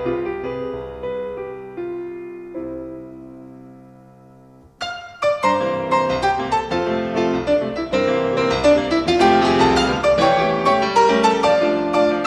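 Solo piano playing a Brazilian dance piece. A chord dies away over the first few seconds, then about five seconds in a louder, livelier passage begins.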